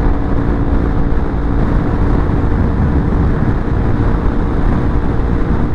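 Yamaha XMAX 300 scooter's single-cylinder engine pulling hard at one steady pitch as the scooter gathers speed, with its variator newly fitted with an aftermarket CT front pulley and roller weights. Heavy wind rush on the microphone at road speed.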